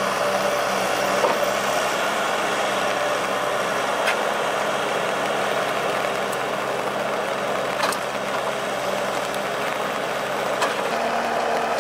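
Valmet 840.3 forwarder's diesel engine running steadily under hydraulic load as its crane lifts a log onto the load, with a few sharp knocks.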